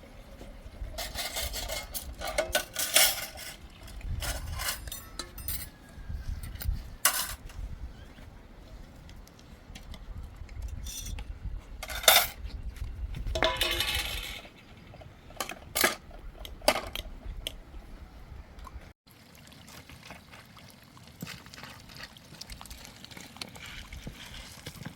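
Scattered clinks and knocks of hard objects, some in quick clusters, over a low wind rumble on the microphone that drops away after a cut about three-quarters of the way through.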